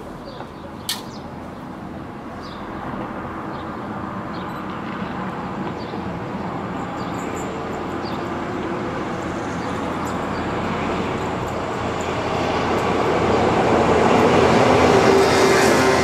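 A single locomotive running light, without a train, approaching and passing. Its running noise grows steadily louder to a peak near the end.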